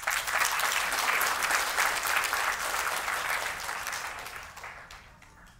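Audience clapping for a correctly recited verse. The clapping starts straight away and dies out over the last second or so.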